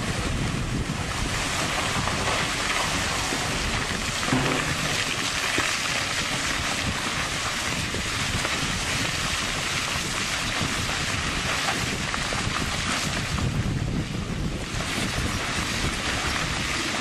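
Steady rushing wind on the microphone, with the engine of a distant Komatsu crawler excavator working faintly beneath it.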